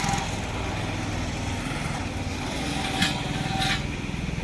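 A small engine running steadily, with one sharp knock about three seconds in and a brief rasping noise just after.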